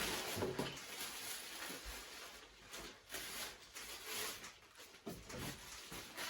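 Irregular rustling and light knocks of shipping packages being handled.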